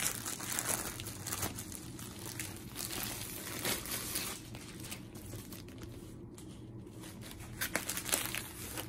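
Clear plastic bag crinkling and rustling in irregular crackles as it is opened and handled around a rolled canvas, easing off briefly about six seconds in.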